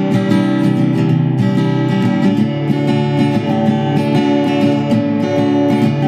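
Background music: a strummed acoustic guitar playing a steady, even tune.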